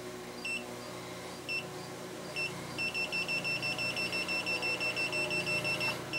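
Klein Tools electronic combustible gas leak detector beeping, first about once a second, then from about three seconds in speeding up to a rapid run of about five beeps a second as its probe reaches the gas valve union. It is sensing gas there, which the owner takes for a small leak at the bottom of the union.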